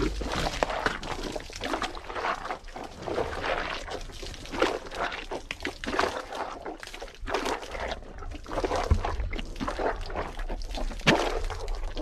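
Hippopotamus chewing and crushing food in its mouth: irregular wet crunching and squelching, with no steady rhythm.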